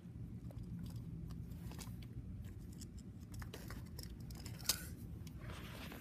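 Steady rain heard from indoors through a closed window, a low even wash of noise with scattered light clicks and one sharper click a little under five seconds in.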